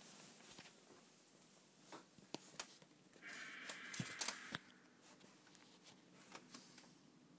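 One harsh, hissing call from an unseen animal outdoors, lasting about a second and a half near the middle, with a few faint clicks around it.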